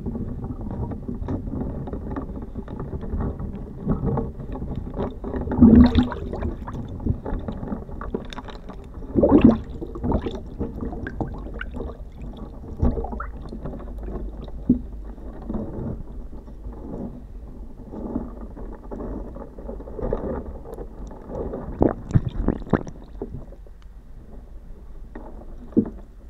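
Paper-and-plastic pasty packet crinkling and being torn open underwater, heard through a hydrophone: muffled, irregular crackling and rustling with water churning around the hands, with a few louder bursts.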